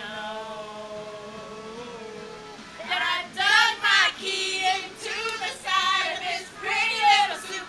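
Girls singing: a long held note at first, then from about three seconds in a string of short, louder sung phrases.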